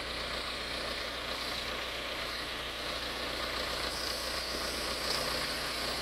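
Case 580E backhoe loader's engine running steadily at a constant speed, with no revving.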